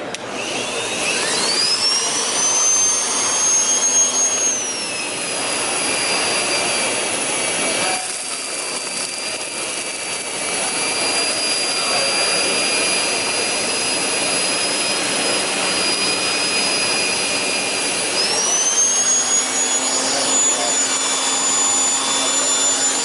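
Numatic Henry canister vacuum running on carpet, picking up a test spill of hair, cereal, cat litter and flour. Its motor whine rises soon after the start, drops a few seconds in and holds steady, then rises again near the end, with a single knock partway through.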